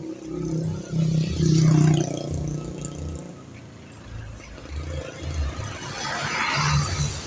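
Large bus engines running as vehicles pass, a low throb that swells to its loudest about a second and a half in and again near the end. No musical telolet horn is heard.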